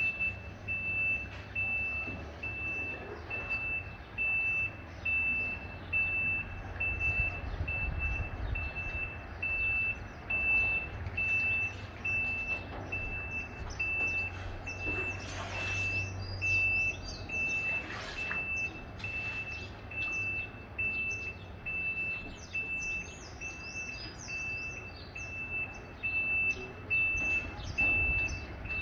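Semi-trailer truck's reverse alarm beeping at one high pitch in a steady, even run, over the low rumble of the truck's engine as it backs up. Two short hisses break in about halfway through.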